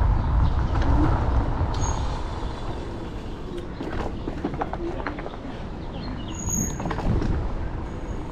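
Riding noise from a Segway GT2 electric scooter on the move: a low rumble of wind and road, with scattered knocks and rattles. The rumble eases about two seconds in.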